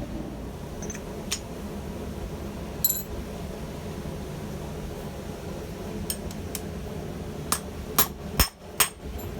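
Steel tools and stock being handled in a blacksmith's shop: scattered sharp metal clinks and knocks, about eight over several seconds, the loudest few close together near the end. A steady low hum runs beneath.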